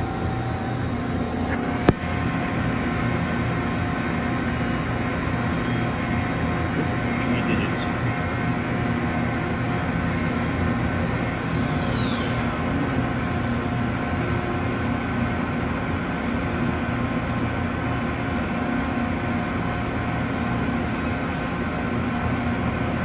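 Mori Seiki Dura Vertical 5100 CNC machining center running with its spindle turning at speed: a steady mechanical hum made of several held tones. About halfway through, a brief high whine sweeps downward.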